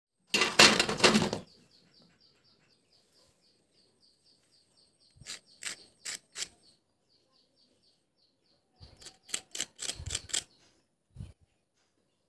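Fried thekua and a fork clattering on a steel plate: a dense rustling clatter at the start, then two short runs of sharp clinks. A high chirp repeats about three times a second behind them until past the middle.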